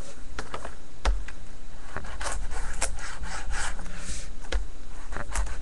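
Cardboard and trading cards being handled, rubbing and scraping, with several sharp clicks.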